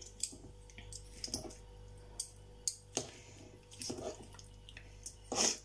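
Two forks tearing apart canned stewed pork in a bowl: soft squelches of the meat, with scattered light clicks as the forks hit the bowl.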